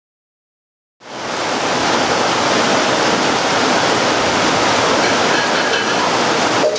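Heavy rain falling in a steady, even hiss that fades in about a second in.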